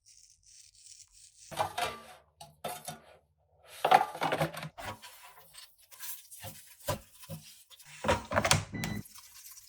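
Food-prep handling sounds: irregular bursts of crinkling and tearing, mixed with a few small sharp knocks.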